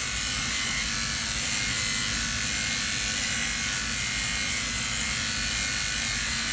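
Electric dog clippers running steadily while being pushed through a miniature schnauzer's coat.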